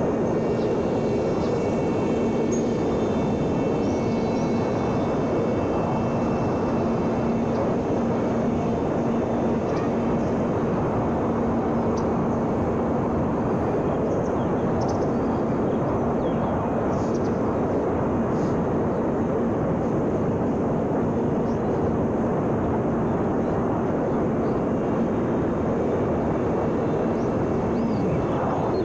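Electric motor and propeller of a small homemade RC foam glider in flight: a steady hum under a loud rush of air, the hum's pitch dropping near the end.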